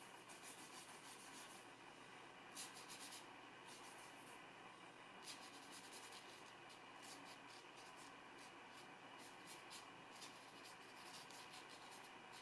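Faint, irregular scratching strokes of a stiff hog-bristle flat brush laying oil paint onto paper.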